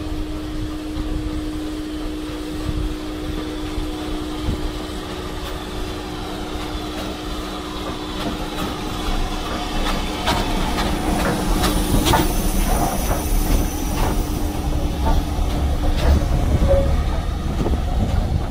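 Southern Railway U-class 2-6-0 steam locomotive 31806 and its train rolling slowly into a platform. A steady low hum runs through most of it; in the second half the wheels click over rail joints with faint high squeals from wheels or brakes, growing a little louder as the engine and tender pass.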